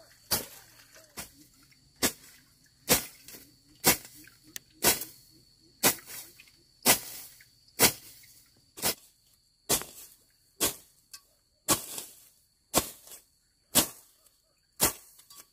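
A hoe chopping into grassy soil as weeds are cleared, one sharp strike about every second in a steady rhythm.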